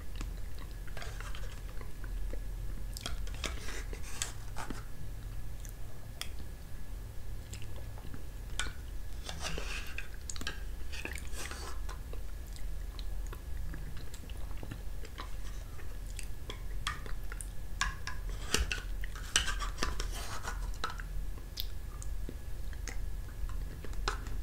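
Metal spoon scraping and clicking against a small plastic gelatin cup, scooping out fruit gel, with chewing between spoonfuls. Short irregular scrapes and taps all through, over a steady low hum.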